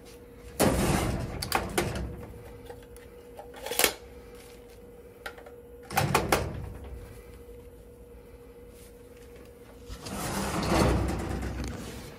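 Clunks and rattles of a snack vending machine's bill validator and cash box being handled. There are a few separate knocks and a longer scraping rattle about ten seconds in, over a steady hum.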